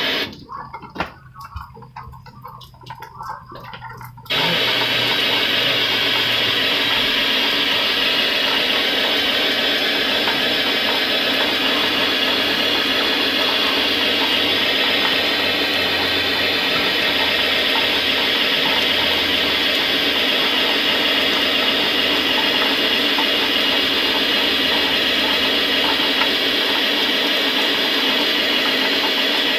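TV static: the Sony Bravia LED TV's speakers playing white-noise hiss from an empty channel with no signal. It is low for the first few seconds, then comes up loud about four seconds in and holds steady.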